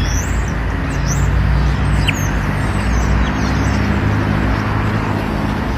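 A road vehicle's engine running with steady road noise, while small birds chirp a few times near the start.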